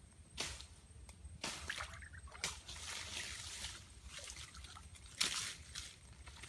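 Shallow stream water splashing and sloshing in several short bursts as a person wades and works in it, mixed with the rustle of leafy branches being laid over a bamboo fish trap.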